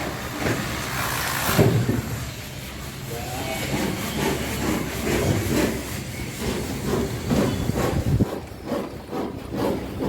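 Excavator's diesel engine running as the machine works, the sound surging unevenly, with a louder rush of noise about a second and a half in.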